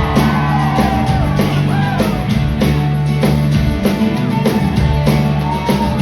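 Live rock band playing an instrumental stretch of a song: a steady drum-kit beat at about two hits a second under bass and guitar.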